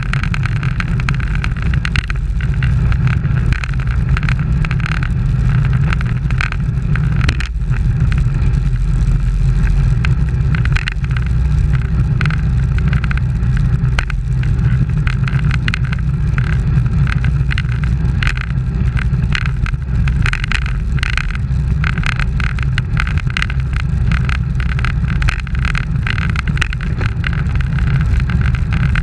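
Steady wind rumble on the microphone of an action camera mounted on a road bike moving at race speed in a group, with road noise underneath.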